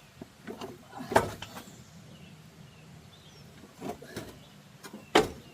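Scattered knocks and clanks of metal parts as a riding mower's deck is worked loose from its hangers. The loudest comes about a second in, with others near four and five seconds.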